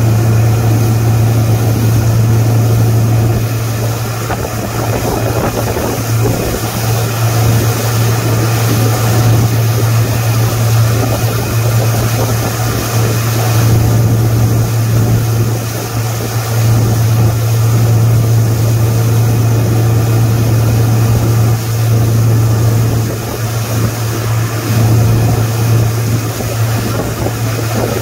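Towing motorboat's engine running steadily at speed, an even low drone, under a constant rush of wind and wake water.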